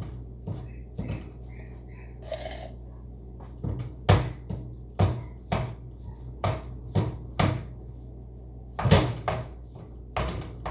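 A cooking utensil knocking and scraping against a pan while breaking up ground beef, a run of sharp knocks about two a second with pauses between, over a steady low hum.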